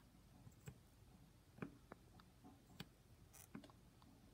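Near silence broken by a few faint, sharp little clicks and ticks, scattered irregularly. They come from hand-soldering: a soldering iron tip and a fine wire working against the metal pins of a DS1216 SmartWatch clock module.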